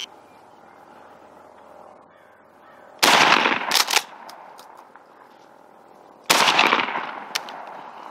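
Merriam's wild turkey gobbling twice, loud and close, each gobble about a second long, about three seconds apart.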